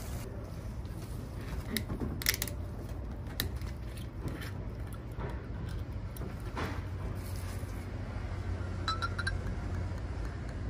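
A few scattered sharp clicks and light glassy clinks as the metal screw cap of a green glass soju bottle is twisted open and a glass shot glass is handled, over a steady low hum.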